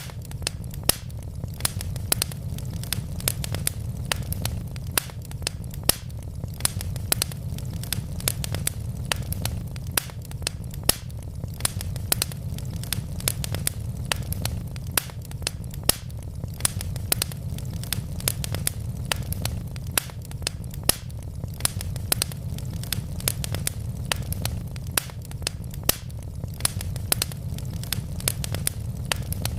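Wood logs burning in a fireplace, crackling with frequent irregular sharp pops and snaps over a steady low rumble.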